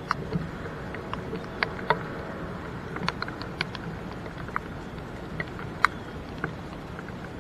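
Raindrops tapping in scattered, irregular sharp ticks, over the low, steady running of a pickup truck reversing a boat trailer down a ramp.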